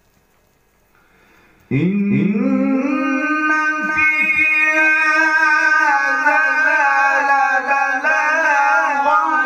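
A man chanting Quran recitation (tilawat) in a melodic style: after a short pause, about two seconds in, his voice swoops up and then holds one long, ornamented note that wavers in pitch.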